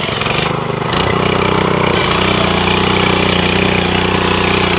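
R777 power tiller's 245 cc engine running. It gets louder about a second in, then holds steady.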